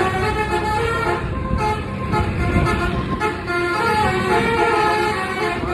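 A bus's basuri (telolet) horn, its multiple air trumpets playing a stepping melody of held notes, over the low rumble of engines and traffic.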